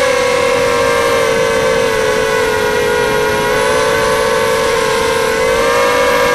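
Electric motors of an FPV racing quadcopter whining steadily in flight, several close pitches at once, dipping slightly and rising again near the end.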